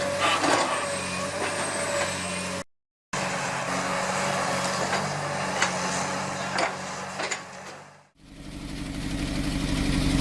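Heavy diesel earthmoving machinery running, a steady low engine hum with scattered clicks and knocks of metal and rock. The sound breaks off briefly near three seconds, and near the end it cuts to a louder, evenly pulsing engine.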